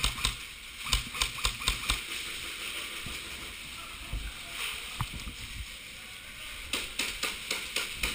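Irregular sharp clicks and knocks in two clusters, one at the start and another near the end, over a steady hiss.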